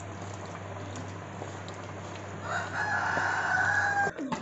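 A rooster crows once: one long call held for about a second and a half, starting past the middle and cutting off suddenly near the end. It sounds over a steady low hum.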